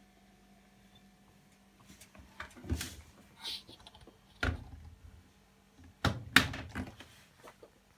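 Hotpoint washing machine giving a string of clunks and short squeaks, about five in all, starting a couple of seconds in over a faint steady hum.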